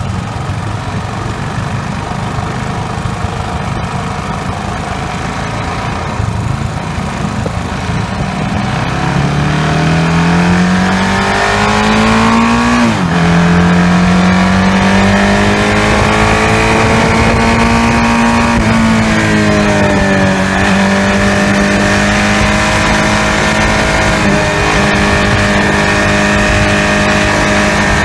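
KTM 690 Duke R's single-cylinder engine accelerating hard, its pitch climbing, falling sharply at a gearshift about 13 seconds in and again about 19 seconds in, then holding steady at speed. Wind rush on the bike-mounted microphone is under it, and it is all a rough noise for the first several seconds before the pitch rises.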